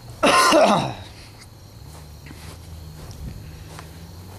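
A person coughing once, clearing the throat loudly close to the microphone, lasting under a second with a falling pitch. A faint steady low hum runs underneath.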